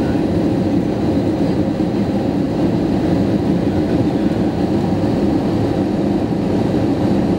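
Steady cabin noise of an Airbus A320 on short final approach, heard inside the cabin: engine hum and airflow over the wing.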